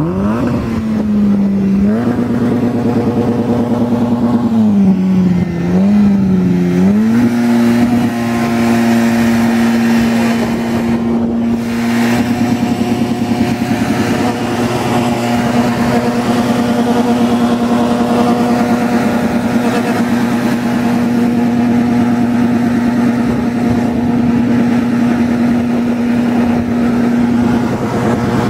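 Citroën AX rally car's engine revving: it climbs at the start, is blipped up and down a few times, then is held at a steady high pitch for about twenty seconds before easing off near the end.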